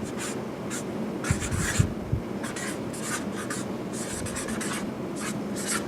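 Someone writing by hand: a run of short, irregular scratchy strokes, like a pen or marker moving over a writing surface.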